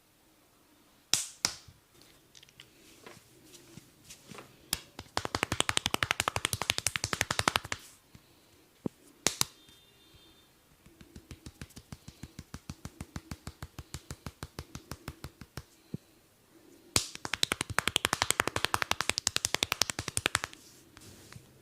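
Percussive massage strikes of a barber's hands on the head and body. They come in fast runs of about ten slaps a second, with a slower stretch of about four a second in the middle and a few single sharp strikes before the first run.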